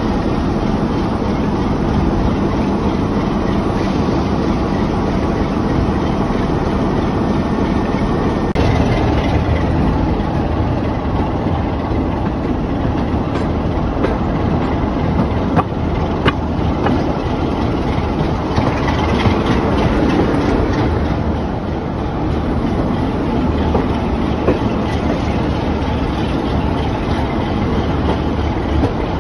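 Class 45 diesel locomotive's Sulzer twelve-cylinder engine running steadily as the locomotive moves along the track, heard from beside the cab side window. Wheels click sharply over the rails a couple of times about halfway through.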